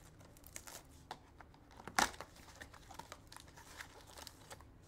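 A cardboard trading-card box being handled and torn open: faint rustling and crinkling, with one sharp snap about two seconds in.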